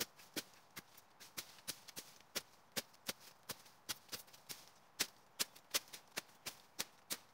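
A machete chopping and slashing through weeds in quick, sharp strokes, about three a second.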